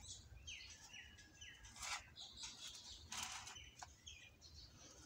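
Faint sounds: a printed book's paper page being turned, with rustles about two and three seconds in. A bird gives a few short falling chirps in the background early on.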